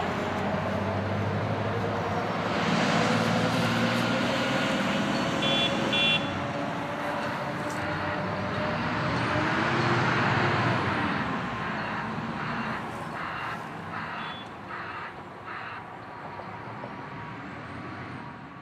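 Road traffic passing on a highway, the noise swelling as vehicles go by and fading toward the end, with two short high beeps about six seconds in.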